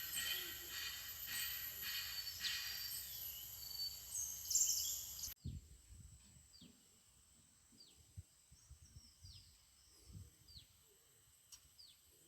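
Outdoor ambience: a dense, steady high chorus of insects and birds that cuts off abruptly about five seconds in. It is followed by quiet, repeated short falling bird chirps and a few low bumps.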